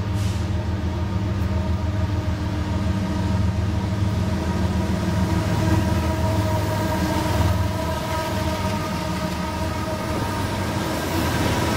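Several BNSF diesel-electric freight locomotives approaching and running past close by, a steady low engine drone with several held tones above it.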